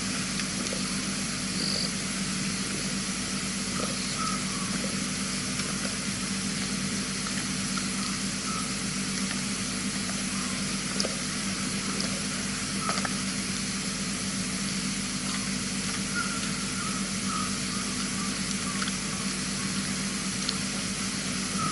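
Night ambience: a steady hiss and low hum, with faint, scattered short calls of frogs.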